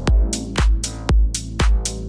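Electronic dance music with a four-on-the-floor kick drum, about two beats a second, and off-beat hi-hats.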